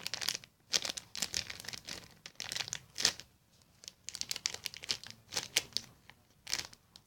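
Irregular crinkling and rustling as a homemade squishy is squeezed and turned in the hands, in uneven bursts with brief pauses.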